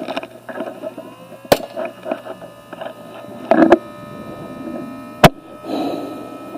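Small fan motor of an anti-fog goggle defogger spinning up to a steady whine about a second in. Two sharp clicks come through, one early and one near the end.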